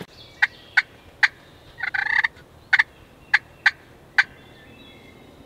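Turkey calling: a series of short, sharp clucks, with one longer, rattling call about two seconds in.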